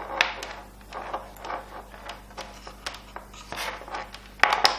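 Handling noise from a lavalier microphone's cable and its plastic parts being rubbed and knocked: a run of light scrapes, rustles and clicks, with a louder cluster of clicks near the end.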